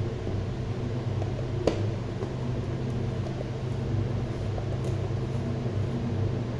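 A steady low mechanical hum, like a fan or motor running, with one sharp click at about a second and a half in and a few faint ticks.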